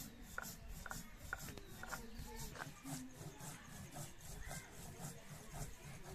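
Stone muller rubbed back and forth over a textured stone grinding slab (sil-batta), crushing dry spice seeds: a rhythmic stone-on-stone scraping grind at about three to four strokes a second.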